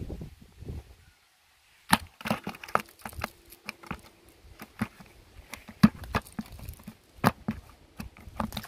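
Fish flapping against the inside of a plastic bucket while a cast net is handled: a run of sharp, irregular knocks and crackling rustles. It starts after a short silent gap about two seconds in.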